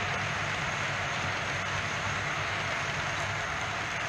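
OO gauge model train of bogie wagons rolling along the track: a steady rumble and whirr of small metal wheels on rails.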